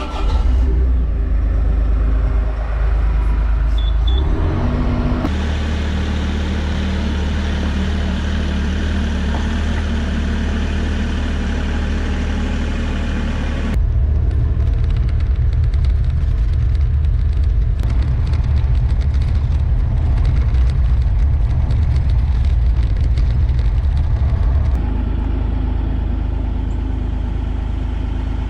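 Diesel engine of a Bobcat e42 mini excavator running steadily with a strong low hum. Its sound changes abruptly about five, fourteen and twenty-five seconds in.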